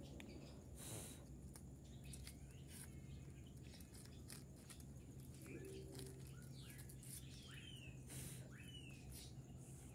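Faint bird chirps, mostly short falling calls in the second half, over soft clicks and rustles from rabbits nibbling banana stalks among dry leaves.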